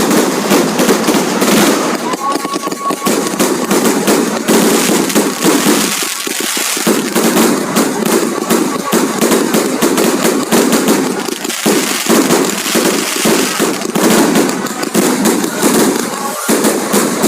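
Fireworks going off in rapid succession: a dense, continuous crackle of many sharp bangs with no pause.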